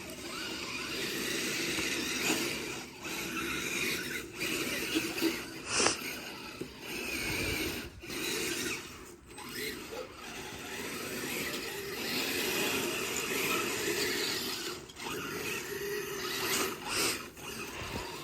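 Radio-controlled Tamiya Blizzard tracked snow vehicle running over hard, crusty snow: electric motor, gearbox and tracks giving a steady mechanical rattle that stops briefly several times.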